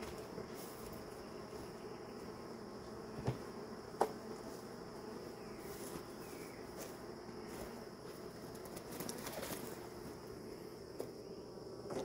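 Honeybees buzzing steadily around an open hive, with two short knocks about three and four seconds in.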